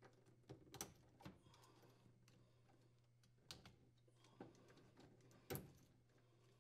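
Faint scattered clicks and plastic taps as spade connectors and the ground wire are pulled off the terminals of a refrigerator evaporator fan motor, the loudest about five and a half seconds in.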